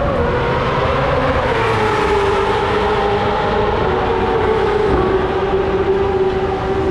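Engine running steadily, a loud drone whose pitch sinks slightly over the first couple of seconds and then holds even, over a rough rumble.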